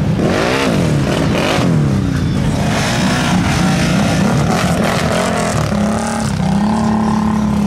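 ATV engines revving hard in deep mud, the pitch sweeping up and down several times, then held at a steady high rev near the end.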